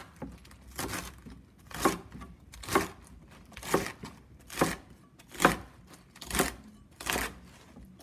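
Chef's knife chopping through a stack of leafy greens and their crisp stems onto a wooden cutting board. It makes a crunchy slicing stroke about once a second, eight strokes in all.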